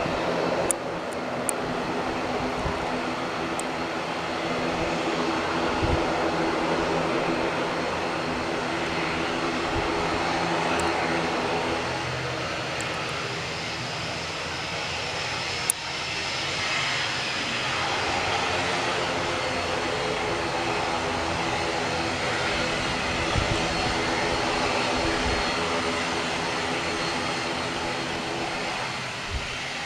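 An airliner's engines running as it passes low overhead on approach to land. The sound is steady and loud, with a sweeping change in tone about halfway through as the aircraft goes by.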